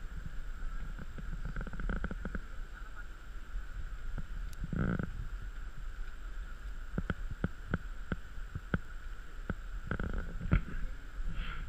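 Muffled rumble of water and air against a GoPro's waterproof housing held at the surface of a hot spring pool. There is a brief louder burst about five seconds in, then a run of sharp clicks and knocks from snow monkeys handling the camera housing.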